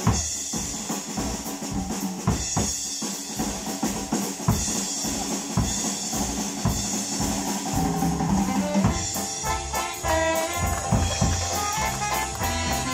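Live traditional jazz band: a drum-kit break of snare, bass drum, rimshots and cymbals, then about eight seconds in the double bass, trumpet, reed and guitar come back in with the drums.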